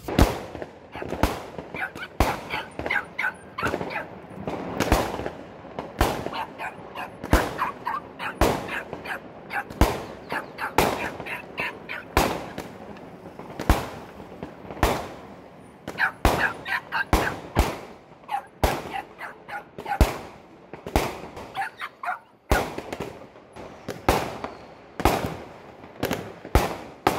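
Firecrackers going off: a long irregular run of sharp bangs, roughly one to three a second, with crackling between them. Loud enough to leave a puppy trembling with fear.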